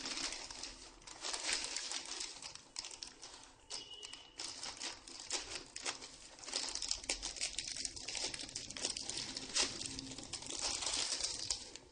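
Plastic courier mailer bag crinkling as hands handle it and tear it open, a dense, continuous stream of small crackles.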